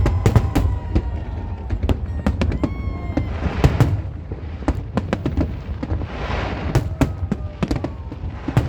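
Aerial fireworks going off in a rapid series of bangs and pops, with swells of hissing crackle about three and a half seconds in and again about six seconds in.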